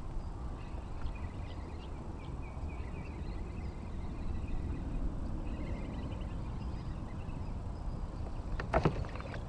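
Wind buffeting the camera's microphone, a steady low rumble, with faint high chirps in the first half and a sharp clatter near the end.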